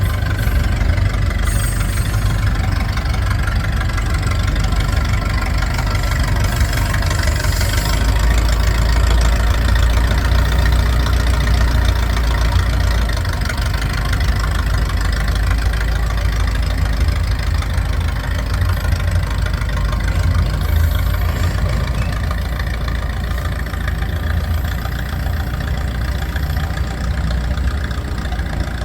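Massey-Ferguson 30 industrial tractor-loader-backhoe engine running steadily, its low rumble heavier for a few seconds around a third of the way in.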